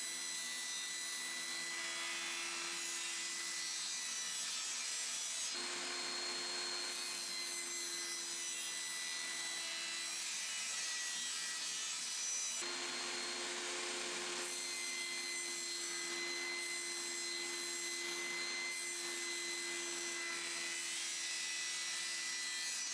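Benchtop table saw running steadily and ripping quarter-inch Masonite hardboard, a constant motor hum and whine under the hiss of the blade. The tone changes abruptly about five seconds in and again near the middle.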